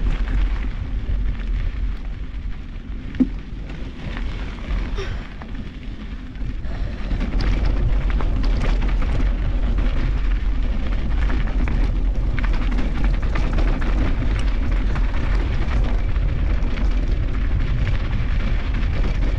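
Wind rumble and rattle on a handlebar-mounted GoPro Hero 8 as a mountain bike runs down a rough trail, with knocks from bumps and a sharp knock about three seconds in. The rumble dips for a few seconds and grows louder again about six seconds in.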